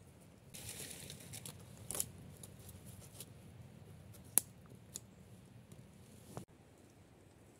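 Thin sticks and twigs being laid by hand over a small flame: rustling with several sharp clicks and snaps, the loudest about four seconds in. It stops suddenly about a second before the end.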